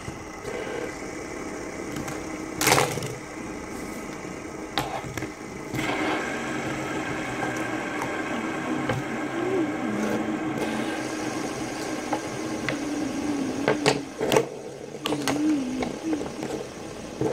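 Fidget spinners whirring in a steady hum, with a few sharp clicks or knocks about two and a half seconds in and again near the end.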